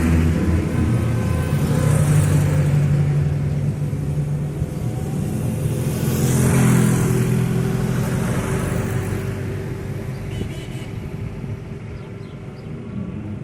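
Vintage vehicles driving past one after another, their engines running. Two pass close by a few seconds apart, and then the engine sound slowly dies away.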